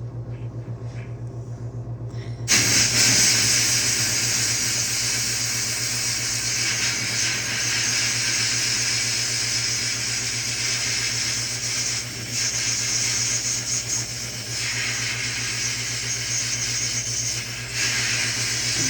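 Steady low hum of an air compressor pulsing rapidly. About two and a half seconds in, a loud, steady hiss of compressed air starts and runs on from a sandblaster being used to blast carbon off spark plugs, easing off briefly a couple of times.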